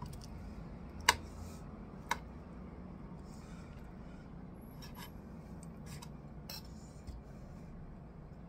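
Small cleaver cutting and scraping plum flesh off the pits on a cutting board: two sharp knocks of the blade on the board about a second apart near the start, then a few lighter ticks, over a steady low hum.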